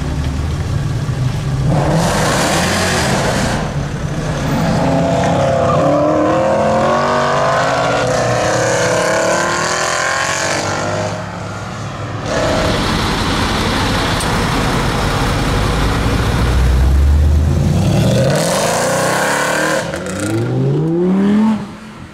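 Mercedes C63 AMG Black Series' 6.2-litre V8 with a catless iPE exhaust, accelerating hard and revving across a run of short clips: loud pulls with the pitch climbing and falling through gear changes. Near the end come two quick rising revs, then the sound cuts off sharply.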